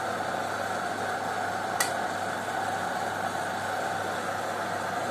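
Metal ladle stirring chicken adobo in a steel wok, with one sharp clink of the ladle against the pan about two seconds in, over a steady hum and hiss.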